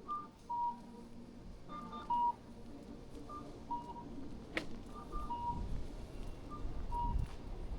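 Electronic beeper sounding a repeating two-note signal, a short higher tone followed by a longer lower one, about every second and a half. There is one sharp click about halfway through and a low rumble in the second half.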